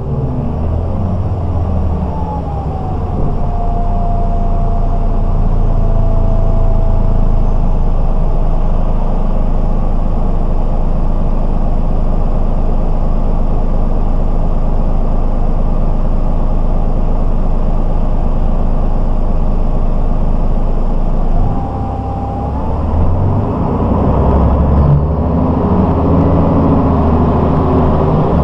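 The diesel engine and drivetrain of a 1992 MAN SL 202 city bus running under way, heard from inside the bus. A thin whine slides down in pitch over the first few seconds and then holds steady. About three quarters of the way through, the engine note drops away briefly, then the engine pulls harder again with a stronger low rumble.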